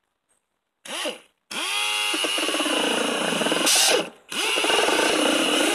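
Drill spinning a rubber decal eraser wheel against a school bus's painted body to strip off vinyl decal lettering. A short burst comes about a second in, then the drill winds up again and runs steadily, cutting out for a moment about four seconds in before carrying on.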